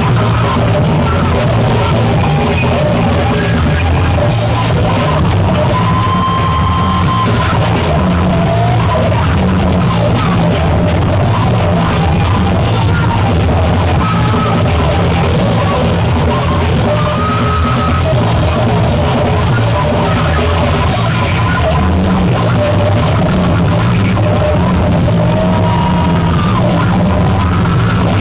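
Heavy psychedelic rock played loud and dense without a break: a distorted wall of band sound with held, wavering high notes drifting above it.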